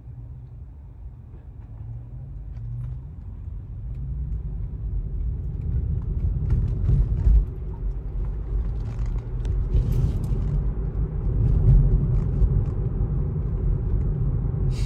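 Road and tyre noise inside an electric car's cabin: a low rumble that grows louder as the car picks up speed.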